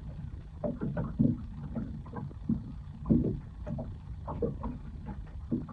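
Water lapping and slapping irregularly against the hull of a small boat riding on calm sea, with a low rumble underneath; the strongest slap comes about three seconds in.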